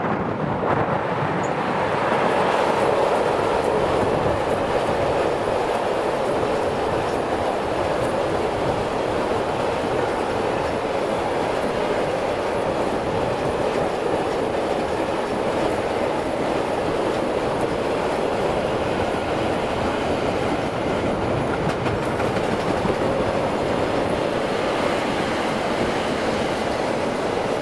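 A train rolling past on the rails, the wheels giving a loud, steady rolling noise that swells slightly about two seconds in and then holds.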